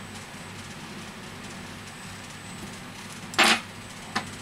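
Steady low background hum, then about three and a half seconds in a short rough scrape as a smartphone is set down on a silicone repair mat, followed a moment later by a light click.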